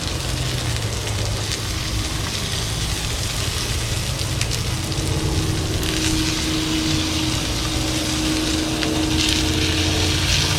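Beef burger patties sizzling on a hot grill over the steady low rumble of the fire. A steady hum joins about four and a half seconds in.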